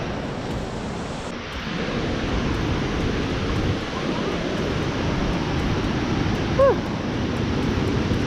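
Steady rush of river rapids, with wind buffeting the microphone, getting louder about a second and a half in. A single short falling call, the loudest moment, comes about six and a half seconds in.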